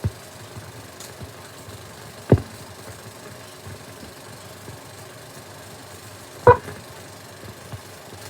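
Steady hiss and hum of an old 16mm film soundtrack running before the programme sound, with a sharp pop about two seconds in and a louder, short tone blip near the end.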